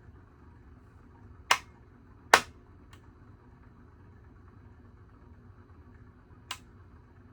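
Heritage Alexis hugger ceiling fan running on medium with a faint steady hum, broken by three sharp clicks, the second the loudest.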